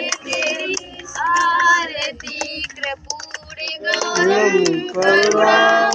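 A group of women and children singing a Hindi aarti to the goddess Durga together, with hand clapping throughout.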